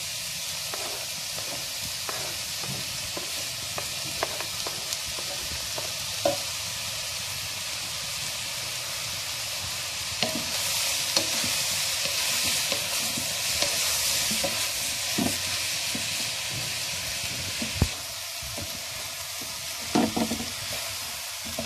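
Diced beef, onion and freshly added tomato sizzling in a hot wok-style pan, with the taps and scrapes of a wooden spoon stirring it. The sizzle grows louder for a few seconds about halfway through.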